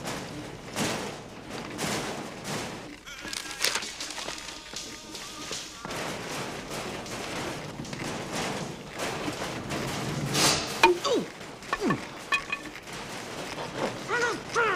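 Knocks, rattles and rope rustling as a man tied to metal shelving struggles against the rope. Muffled grunts through a gag come near the end.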